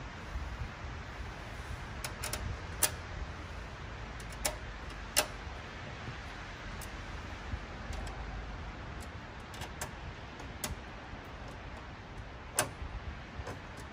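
Scattered sharp metallic clicks and taps of bolts being fitted through a stainless steel truck drop visor, the loudest about three, five and twelve and a half seconds in, over a steady low rumble.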